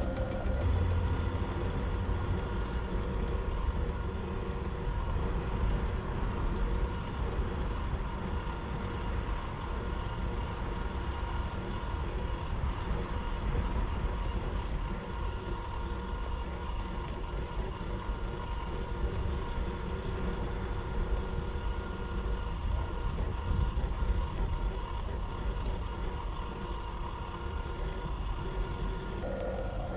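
Traxxas TRX-4 RC crawler's electric motor and gear drivetrain running steadily, a constant whine over a low rumble.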